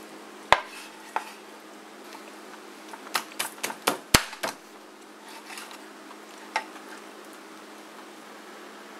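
Chinese cleaver chopping through bone-in poached chicken onto a cutting board: a sharp chop, a second one, then a quick run of about six chops in the middle, and one more later.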